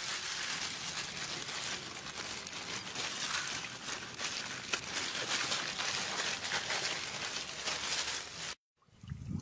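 Thin plastic bag crinkling and rustling in a dense run of small crackles as hands knead the white contents inside it; it cuts off abruptly near the end.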